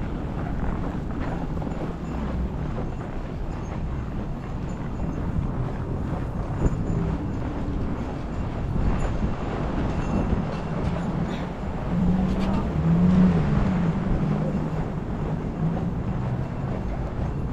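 Steady low rumble of city traffic, with a louder pitched engine hum about twelve seconds in.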